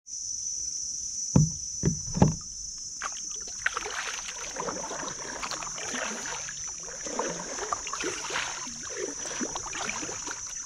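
Kayak paddle strokes splashing in the water, starting about three seconds in, after three heavy knocks. A steady high-pitched hiss runs underneath.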